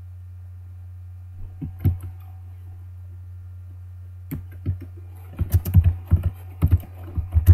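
Typing on a computer keyboard: a few isolated clicks in the first half, then a quick run of keystrokes from about five and a half seconds in. A steady low hum runs underneath.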